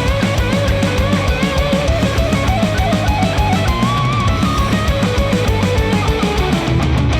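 Heavy rock instrumental with guitars, a melodic line gliding up and down and a fast, steady drum beat, played through a HIFIMAN Edition XV headphone and picked up by microphones at the earcup.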